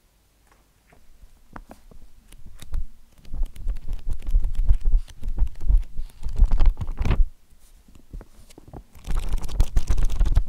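Pages of an old hardback book being handled and turned: paper rustling with soft low thumps. It comes in two spells with a short pause between them.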